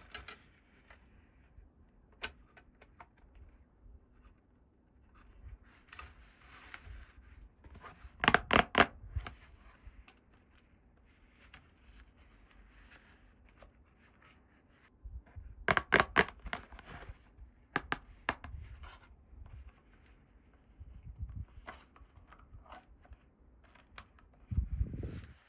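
Small plastic toy pieces being handled and clicked into place, with soft rustling of packaging between. Rapid sharp clicks come in two clusters, about eight and sixteen seconds in, and a dull thump near the end.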